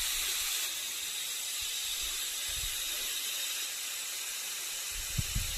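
Steady hiss of compressed air at a tyre, with a few low knocks near the end.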